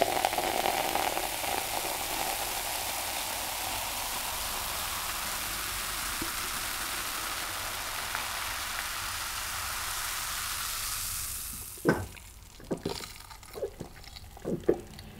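Diet Coke poured from a can into a glass, fizzing steadily as the foam rises. The fizz fades after about eleven seconds and is followed by a few sips and gulps.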